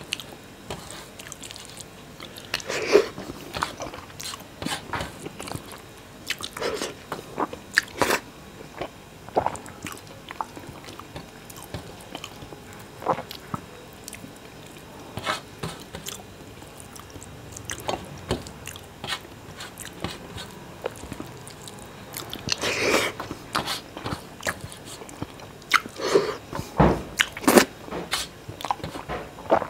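Close-miked eating sounds of a man eating rice with fish curry by hand: wet chewing and lip smacks with irregular clicks, a few louder clusters around the middle and near the end.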